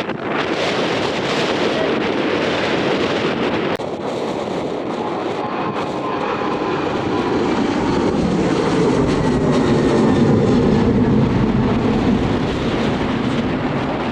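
Aircraft engines passing, the roar swelling to a peak about ten seconds in and then easing slightly, with wind buffeting the microphone.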